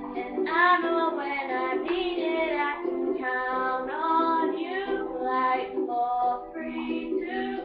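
A young singer's voice singing a pop song over music accompaniment.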